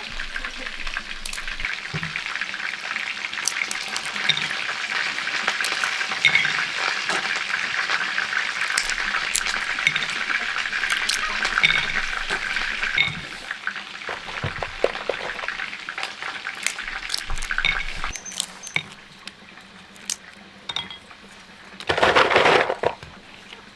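Food sizzling in a frying pan, with small clinks and clicks of a utensil. The sizzle fades away over the second half, and a short, loud scraping noise comes near the end.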